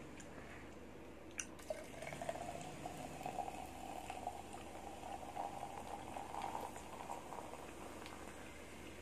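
7 Up soda poured from a can into a glass, running and fizzing for about six seconds with the pitch rising slightly as the glass fills. A single click comes just before the pour starts.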